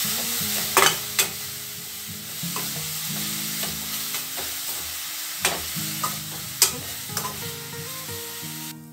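Grated carrot sizzling in ghee in a stainless steel pan, stirred with a slotted metal spatula that scrapes and gives several sharp clicks against the pan. The carrot is being sautéed in the ghee until its raw smell cooks off.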